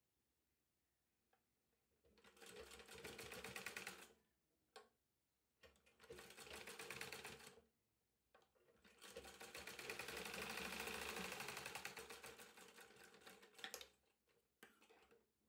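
Sewing machine stitching lace onto blouse fabric in three runs: a short one about two seconds in, another in the middle, and a longer one of about five seconds, with a few light clicks in the pauses between.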